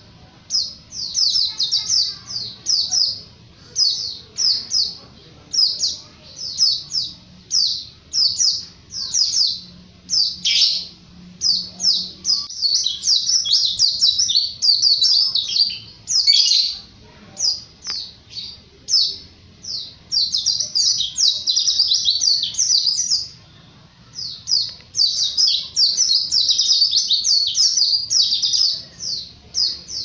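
White-eye (pleci) singing a fast, high-pitched twittering song: rapid runs of short chirping notes in long, near-continuous phrases separated by brief pauses.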